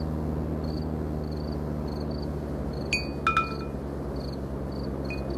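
A steady low hum with soft, high chirps repeating at a regular pace, and a few short ringing chime strikes about three seconds in.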